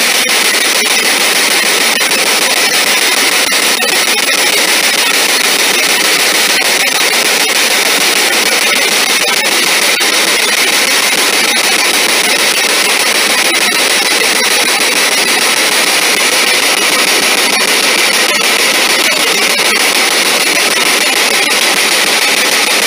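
Loud, steady radio static hissing from a spirit box scanning radio channels, played through a small portable speaker.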